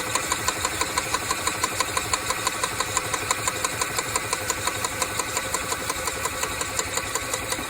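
Club Car DS golf cart's single-cylinder four-stroke engine being cranked over by its starter without firing, with the fuel shut off, to circulate fresh oil after an oil change. It gives a steady rhythmic chugging of about five beats a second.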